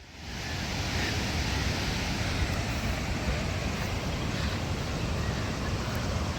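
Steady rushing of a waterfall's falling water, rising in over the first half second and then holding.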